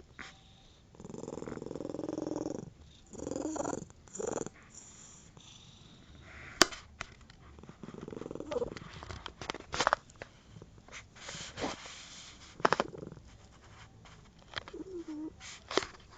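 Domestic cat purring under a blanket, in bursts of a second or two that fade later on, with scattered sharp clicks in between.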